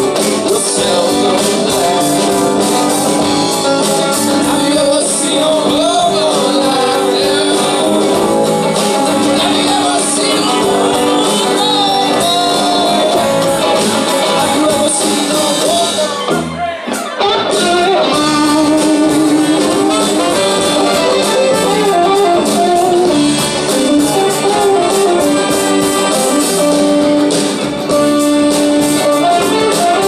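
Live band playing a song: electric guitar, keyboard and a horn section of saxophones and trumpet, with singing. The band drops out for a moment about halfway through, then comes back in.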